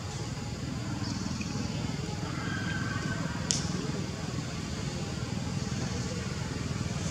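Steady outdoor background noise, a low rumble throughout, with one sharp click about three and a half seconds in.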